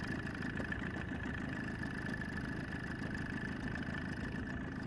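Boat's outboard motor running steadily at low trolling speed: a constant low drone with a faint steady high whine over it.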